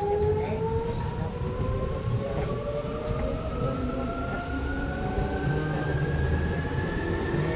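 Seibu 2000 series electric train accelerating, heard from inside the car: the traction motors' whine rises steadily in pitch over the rumble of the wheels on the rails.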